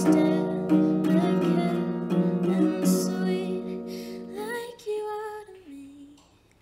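A woman singing to her own strummed acoustic guitar as the song ends: the strumming stops about four seconds in, and a few last notes step down in pitch and fade away.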